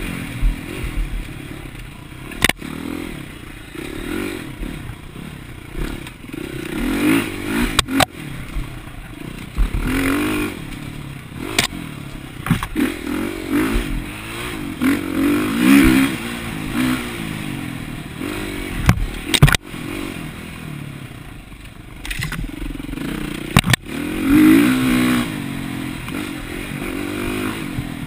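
Dirt bike engine being ridden hard, its pitch rising and falling as the throttle opens and closes, with sharp knocks and rattles now and then as the bike goes over bumps.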